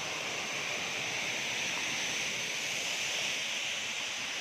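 Selir waterfall: a steady rush of falling water.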